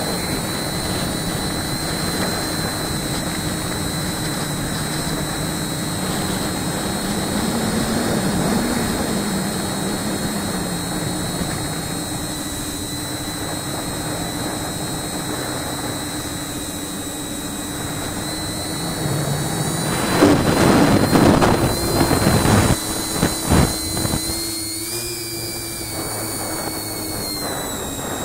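Tricopter's brushless motors and Graupner 9x5 three-blade propellers whining steadily in flight, holding a nearly constant pitch. About three-quarters of the way through comes a few seconds of much louder rushing, gusty noise.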